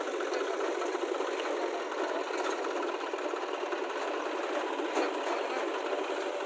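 A small motor running steadily with a fast, even mechanical rattle.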